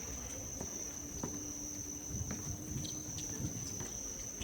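A steady high-pitched insect chorus, like crickets, with scattered light knocks and taps.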